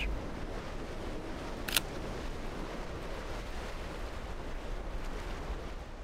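Sea surf, a steady even wash of waves, with a single short click about two seconds in.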